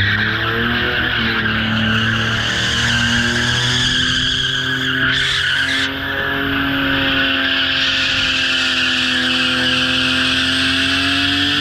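BMW E34 saloon drifting in circles: its tyres squeal continuously over an engine held at steady revs that dip briefly a few times.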